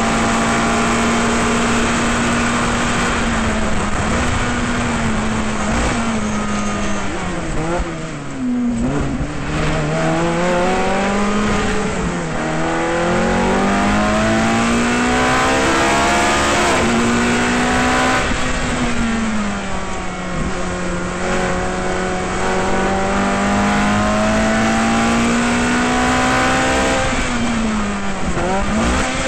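Onboard sound of a Ferrari F430 GT race car's V8 engine at high revs. It holds near top speed, then drops through a run of downshifts under hard braking about eight seconds in. It then climbs back up through the gears and drops revs again under braking near the end.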